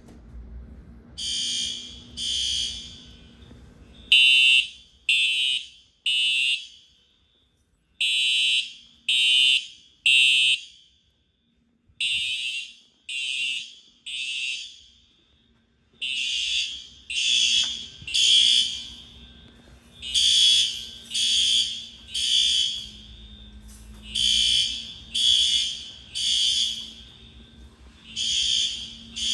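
School fire alarm being tested, sounding the temporal-three evacuation pattern: groups of three loud, high-pitched beeps about a second apart, each group followed by a short pause, repeating over and over.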